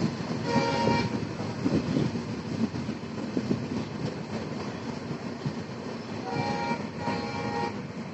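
Train running along the track, heard from inside a carriage by an open window: a steady rumble with wheel clatter. The train's horn sounds three short blasts, one about half a second in and two close together near the end.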